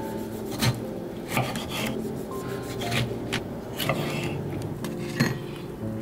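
Knife rasping across toasted bread in several irregular strokes, with soft background music underneath.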